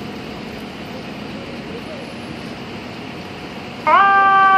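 Steady city street and traffic noise, then about four seconds in a fire engine's air horn starts a loud, steady blast. The blast rises briefly into pitch and holds one chord-like tone.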